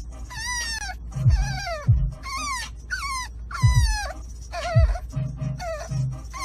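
A dog whining in a quick string of high cries, each sliding down in pitch, about two a second, over music with a low beat.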